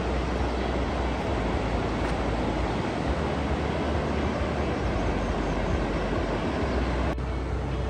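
Steady road noise of a moving vehicle: an even rushing noise over a low, unsteady rumble. The sound changes abruptly about seven seconds in.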